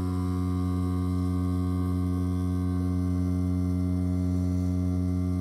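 Wireless direct-drive rotary tattoo pen with a 4.5 mm stroke running steadily, a low even buzz, its needle working in practice skin.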